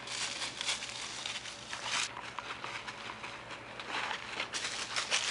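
Dogs' paws crunching and rustling through dry fallen leaves in irregular spells, with a quieter stretch in the middle.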